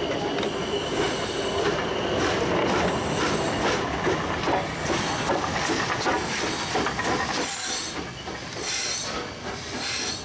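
Pikku Jumbo steam locomotive (Finnish VR class Tk3) moving along the track, with steam hissing around the driving wheels and the knocking and squeal of wheels and running gear. In the last few seconds the steam hiss comes in separate puffs about a second apart.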